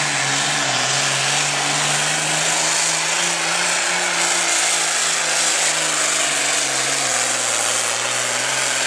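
Super Farm class pulling tractor's turbocharged diesel engine running hard under load as it drags the weight sled, pouring black smoke. It makes a loud, steady engine note with a heavy high hiss, the pitch dipping and recovering slightly.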